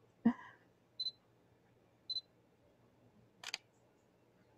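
Digital camera beeping twice, short high beeps about a second apart, then its shutter firing once about three and a half seconds in. A brief voice sound comes just after the start.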